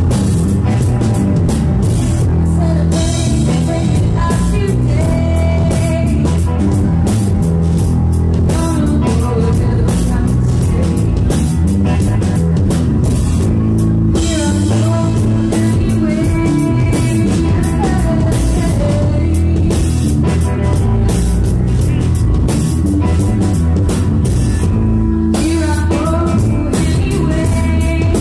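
Live rock band playing: electric guitar and drum kit, with a woman singing.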